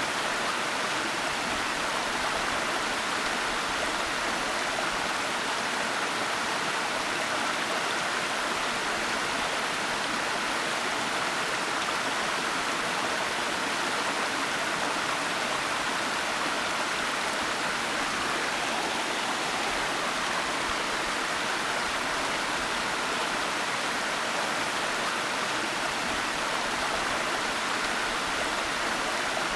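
Waterfall: water pouring and splashing in a steady, even rush with no breaks or changes.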